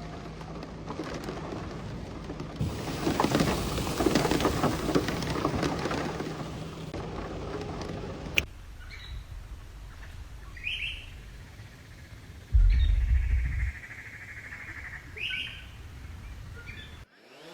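Heavy rain with a rolling rumble of thunder, which cuts off sharply after about eight seconds. Then birds chirp in short calls, with a brief low thump partway through.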